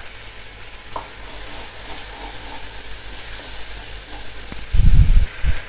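Thin spice masala of turmeric, chilli, garlic and ginger paste in water, sizzling and bubbling in a non-stick kadai and being stirred with a wooden spatula. A few loud, dull low thumps come near the end.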